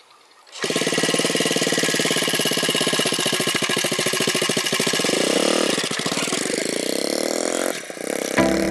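Small single-cylinder motorcycle engine fitted to a child's bicycle, running with a fast, even pulse. It comes in suddenly about half a second in and revs up once about five seconds in. It drops away near the end as music begins.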